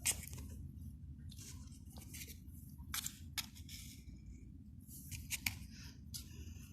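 Irregular crisp snips and rustles with a few sharp clicks, the loudest right at the start, over a steady low hum.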